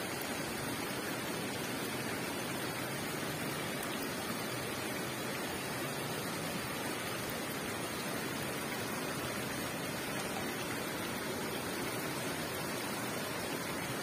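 Steady, even rushing of a waterfall and the river running below it.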